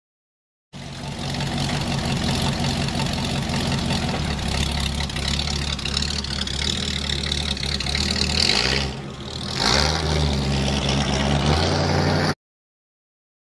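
An engine running steadily, with a brief drop and a rise in pitch about nine seconds in. It starts and cuts off abruptly.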